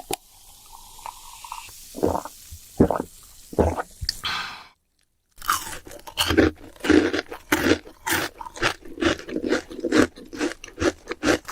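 Crisp fried chicken crunching as it is bitten and chewed close to the microphone: a few separate bites at first, then, after a brief break in the sound just before halfway, rapid close-up crunching.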